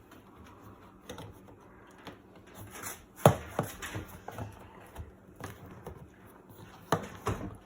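Scattered clicks and knocks of washing-machine parts being handled while a part is worked off the water-level pressure canister, the loudest a sharp knock about three seconds in and a few more near the end.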